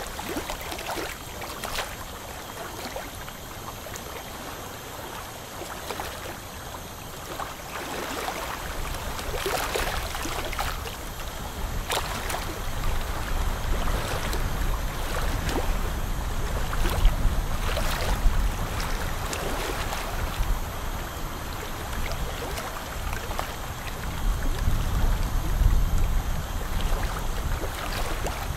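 Dental suction tip hissing and gurgling in the mouth, with short scratchy scrapes of a hand scaler prying tartar off the teeth. The low rumble of the suction grows stronger in the second half.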